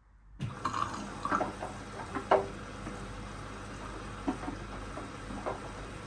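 Water running and splashing, starting abruptly about half a second in, with scattered splashes and knocks over a steady rush.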